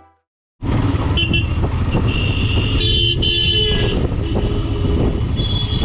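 Road traffic heard from a moving motorcycle: a steady low rumble of engine and wind, with vehicle horns tooting several times, the longest blast near the middle.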